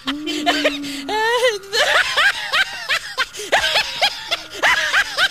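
Young girls giggling and making playful voice sounds, opening with a long held note, then a run of short sing-song laughs and chatter.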